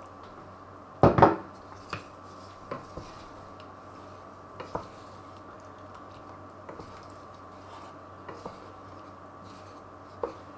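Wooden spatula stirring a cream sauce in a metal pan, knocking and scraping against the pan. There is a loud double knock about a second in, then scattered lighter taps.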